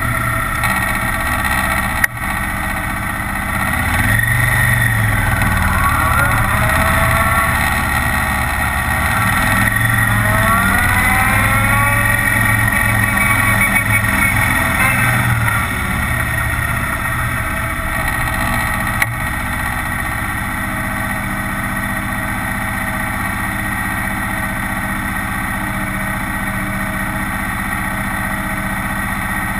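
Kawasaki Vulcan 900's V-twin engine running under way, climbing in pitch as it accelerates about four and again about ten seconds in, then settling to a steadier, quieter cruise from about sixteen seconds. A sharp click about two seconds in and another near nineteen seconds.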